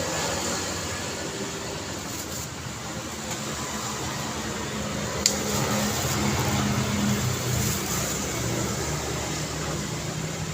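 Steady road traffic ambience: a wash of tyre and engine noise with the low hum of a vehicle engine passing through the middle, and one sharp click about halfway.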